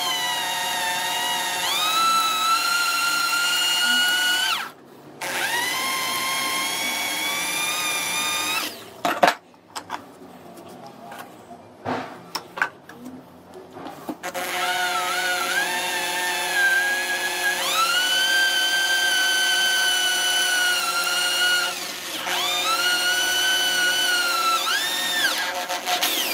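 Electric drill boring a hole lengthwise through the end of an iron threaded rod. It runs in four bursts, each opening with the motor whine rising to speed. A pause of about five seconds in the middle holds only scattered clicks.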